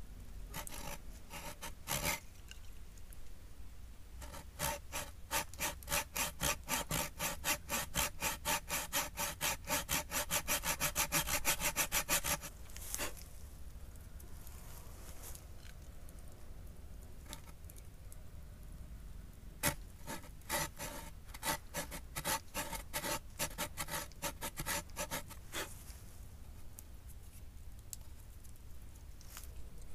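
A hand saw cutting wood in two bouts of quick back-and-forth strokes. The first bout gets louder toward its end and stops about halfway through; the second is shorter.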